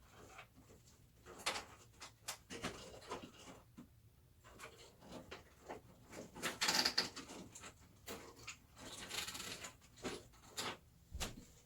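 Handling noise from PC power cables being pulled and routed behind a computer case's motherboard tray: scattered clicks and rustles, with a louder rustle about seven seconds in and another about nine seconds in.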